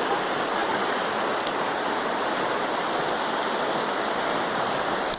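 River water rushing over rocks: a steady, dense wash of flowing water that cuts off suddenly at the very end.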